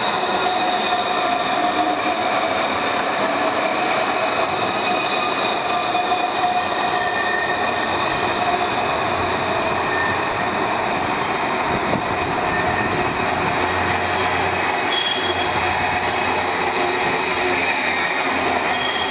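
Dublin Luas tram running on street rails: a steady dense noise with high, steady squealing tones from the wheels on the track, as a tram draws close and passes near the end.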